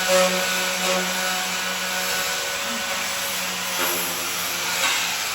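A power tool running steadily, a constant hiss over a low hum.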